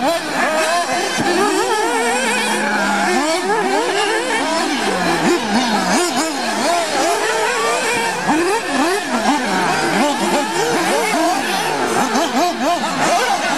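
Several 1/8-scale nitro off-road RC buggies racing together. Their small glow-fuel engines rev up and drop back over and over through the corners and jumps, giving many overlapping rising and falling whines.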